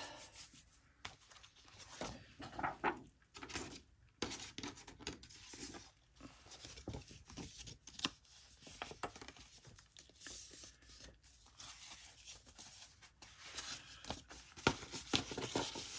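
Paper pages being handled and shuffled for a handmade journal: irregular rustling and crinkling with small taps and clicks.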